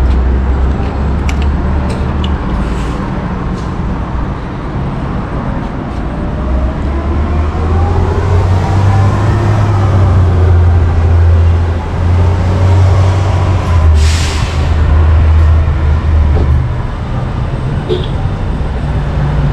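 Gasoline pump dispensing fuel amid a steady low rumble of idling and passing vehicles, with a rising and falling engine tone in the middle. A sharp hiss lasting about half a second comes roughly fourteen seconds in.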